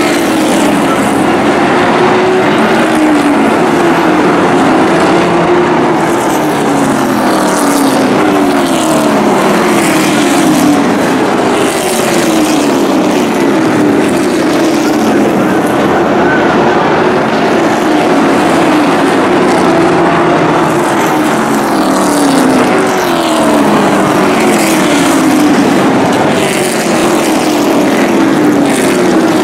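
Several stock-bodied racing truck engines running around a short oval, their pitch sweeping up and down again and again as trucks come off the turns and go past.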